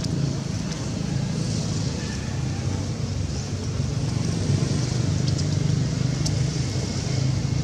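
A motor running steadily, a low drone with an even hum that doesn't change.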